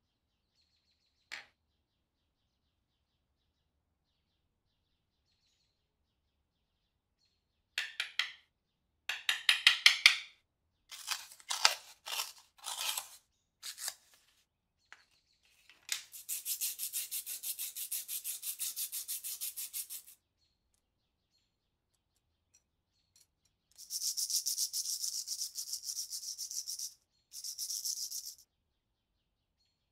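A single click near the start, then sandpaper being crinkled and torn into pieces. After that come two spells of fast, even strokes of sandpaper rubbing the lighter's small, rusted coil spring to clean it.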